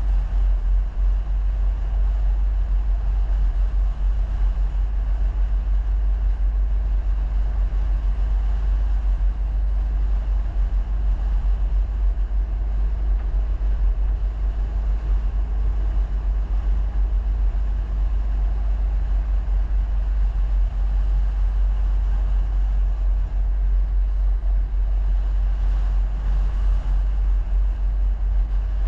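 Vehicle on the move: a steady, heavy low rumble of engine and road noise that holds level throughout.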